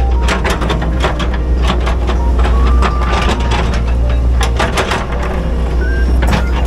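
Excavator's diesel engine running steadily, heard from inside the cab, with frequent clanks and knocks as the bucket scrapes up collapsed soil and rock.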